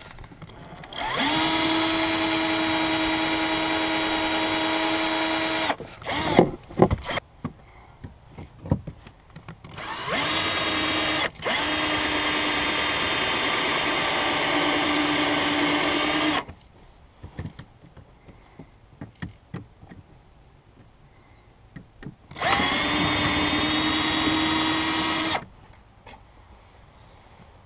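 Black & Decker cordless drill running at a steady whine in three long runs, drilling out the rivets of the old bilge pump mounting bracket. Short knocks and clatter come between the runs.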